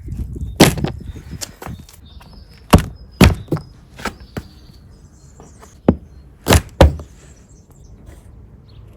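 About six sharp mechanical knocks and clacks, spaced irregularly with two of them close together, from an Air Arms TH200 spring-piston air rifle.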